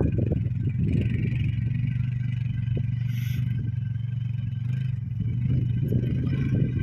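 Quad bike (ATV) engine running steadily as it drives across soft sand, a low drone that grows a little louder about five seconds in.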